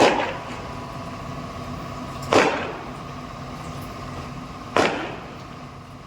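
Fireworks sound effect: three sudden bursts about two and a half seconds apart, each trailing off over about half a second, over a steady hum of a few held tones.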